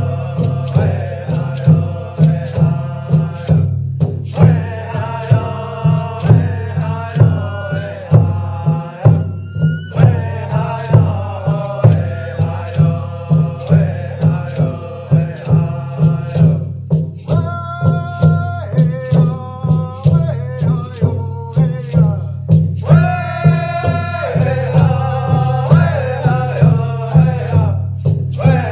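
Music: chanted singing over a steady, even percussion beat with a rattling sound.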